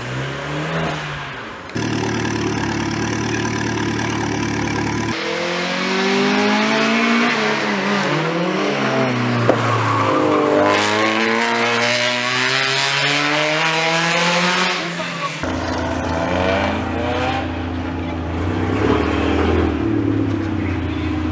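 Car engines at a track in a series of edited clips. A steady engine drone gives way about 5 s in to several engines rising and falling in pitch as cars accelerate, shift and brake. About 15 s in it cuts back to a steadier engine drone with some revving.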